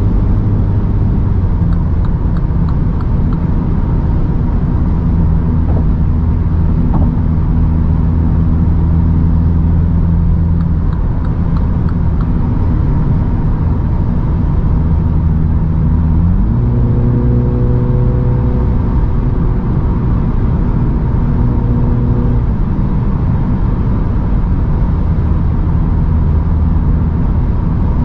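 Mini Clubman John Cooper Works' 2.0-litre turbocharged four-cylinder engine cruising at motorway speed, heard inside the cabin over steady tyre and road noise. About 16 seconds in, the engine note rises in pitch and holds. About 22 seconds in, it drops back in a sudden step.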